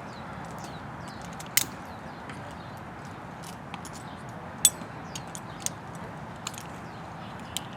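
Scattered sharp clicks and clinks of metal climbing hardware being handled, two louder ones about a second and a half in and near five seconds, over a steady background hiss.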